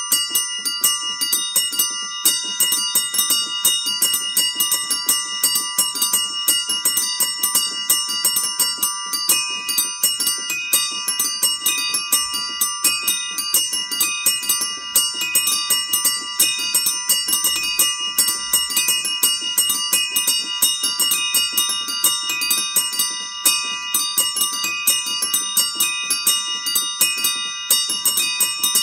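A rack of small bells struck in a fast, steady pattern, many tones ringing on and overlapping. About ten seconds in, a higher bell joins, struck at regular intervals.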